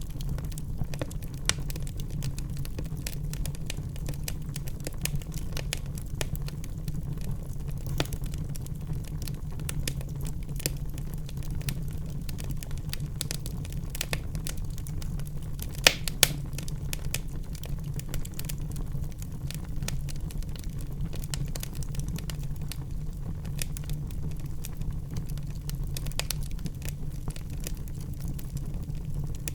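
Wood fire crackling in a fireplace: a steady low rumble under many small snaps, with two louder pops close together about halfway through.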